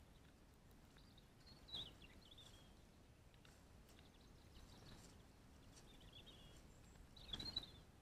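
Faint, short chirping calls of small songbirds in three brief phrases, over near-silent woodland background, with a soft knock about two seconds in and another near the end.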